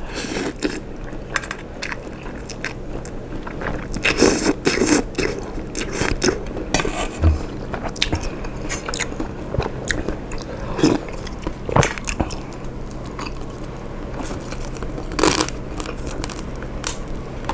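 Close-miked eating sounds: chewing and wet mouth noises while eating tom yum seafood instant noodles, with a few louder longer sounds about four seconds in and near the end.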